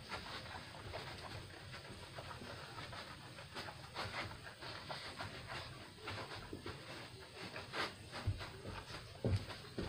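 Breathing and handling noise close to a phone's microphone: soft rustling and scattered taps, with a few heavier thumps near the end.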